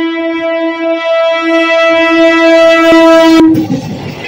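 EMU local train sounding one long, steady horn as it approaches, growing louder and cutting off about three and a half seconds in. The rumble and wheel knocks of the train reaching the crossing follow.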